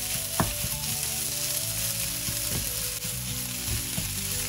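Minced chicken and masala sizzling in a nonstick frying pan while a wooden spatula stirs and scrapes it, a steady frying hiss throughout.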